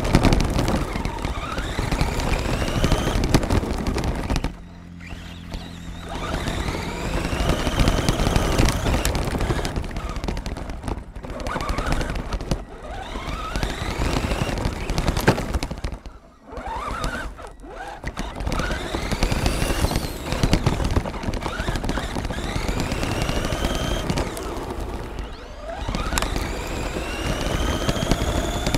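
Onboard sound of a radio-controlled monster truck driving hard on gravel. The stones rattle and crunch against the chassis and tyres, and the electric motor whines up and down in pitch with the throttle. The noise drops off briefly twice as it lets off.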